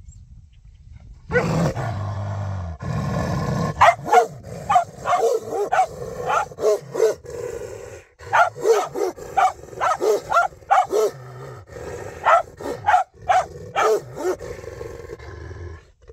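Two dogs, a large shepherd-type dog and a small dog, growling and barking at each other: a low growl starts about a second in, then a long run of barks and snarls, roughly two a second, that stops near the end.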